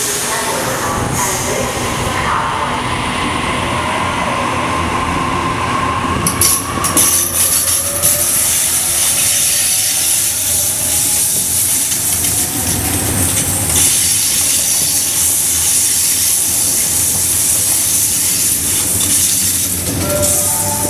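A Sydney Trains Waratah double-deck electric train runs steadily past and away, its wheels rumbling on the rails. About six seconds in, a rising whine joins the wheel noise as the train picks up speed.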